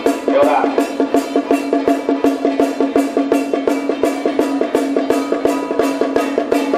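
Traditional temple festival percussion: drums and gongs beaten in a fast, even rhythm of about five strikes a second, over a steady ringing tone.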